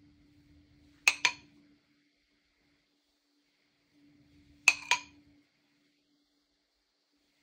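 Metal teaspoon clinking against the bowl as it scoops chocolate glaze: a quick double clink about a second in and another about three and a half seconds later.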